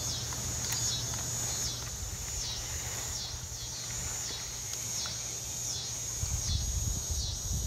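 Insects singing in a steady high-pitched chorus that pulses a little more than once a second. A low rumble swells near the end.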